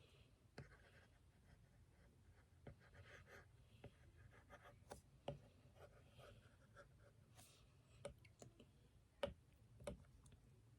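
Faint scratching of a pen drawing strokes, broken by scattered light taps and clicks.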